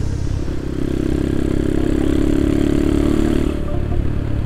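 Motorcycle engine running as the bike rides along, over steady road and wind noise; its drone grows stronger about half a second in and eases after about three and a half seconds.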